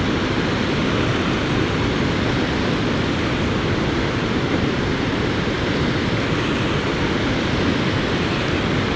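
Steady rush of water spilling through a dam's spillway gates and churning below.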